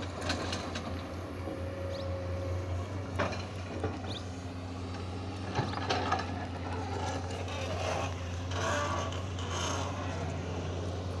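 Komatsu hydraulic excavator working: its diesel engine runs steadily under load while the boom and bucket move, with a few sharp metallic clanks from the bucket and linkage. Near the end come rougher scraping sounds as the bucket digs into the dirt.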